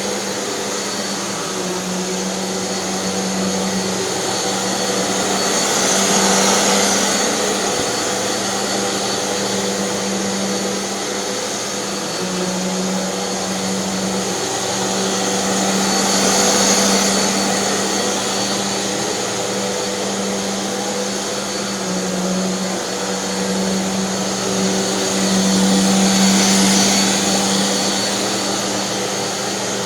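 Hoover NanoLite vacuum cleaner running continuously, a steady motor hum with a rush of air over it that swells and eases about every ten seconds.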